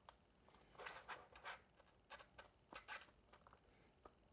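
Pen scratching short marking strokes on paper-faced foam board along a steel ruler: a few faint scratchy strokes, the loudest about a second in.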